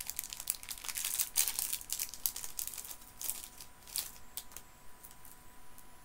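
Plastic candy wrapper crinkling and tearing as it is opened by hand. The crackles come thick for the first couple of seconds, then thin out to scattered ones.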